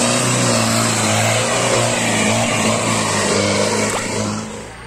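Off-road 4x4 jeep's engine working hard under load as it climbs a steep dirt slope, held at a steady high note, fading near the end as the jeep moves off.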